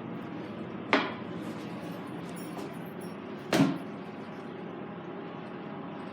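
Vintage Eljer toilet giving two sharp clunks about two and a half seconds apart over a steady faint hiss. The cause of the noise is unknown.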